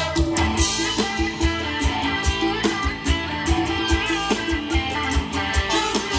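Loud live Thai ramwong dance band music in a cumbia style, played over a PA, with guitar over a steady drum beat.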